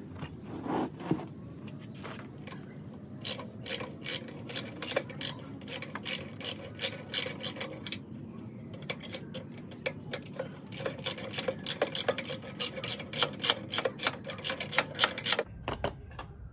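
Hand socket ratchet clicking in quick runs of strokes as a nut is backed off, with a couple of sharper knocks about a second in.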